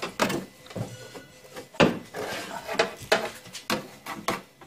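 Irregular sharp knocks and clicks of paintless-dent-repair tools against a car door's sheet-steel panel, about half a dozen, the loudest a little under two seconds in.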